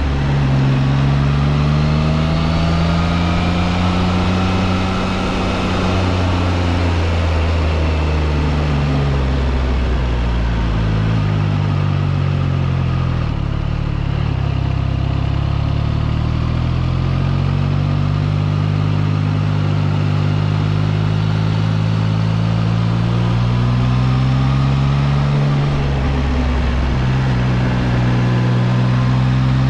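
Triumph Trident 660's three-cylinder engine heard from the rider's seat. Its pitch falls as the bike slows for a tight bend, then climbs again under throttle, with a short dip in pitch near the end.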